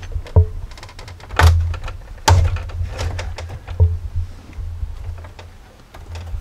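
Dashboard trim piece being pried up from its clips: a handful of knocks and thuds in the first four seconds, then quieter handling noise.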